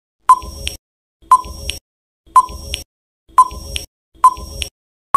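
Quiz countdown timer sound effect: five short beeps about a second apart, one for each count from five down to one.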